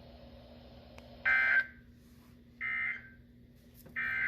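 Weather radio sounding the EAS end-of-message signal: three short, identical bursts of shrill digital data tone about 1.3 s apart, marking the end of the flood warning broadcast.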